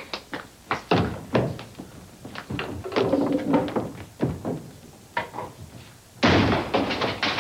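A string of separate knocks and thuds as wooden chairs and a round pedestal table are lifted upright and set down on a wooden floor. A louder wash of sound comes in about six seconds in.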